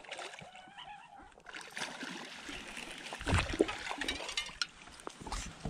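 Light water splashing and dripping beside the boat, with a louder splash about three and a half seconds in.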